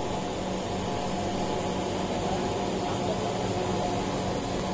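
A steady low machine hum over an even wash of noise, holding level throughout.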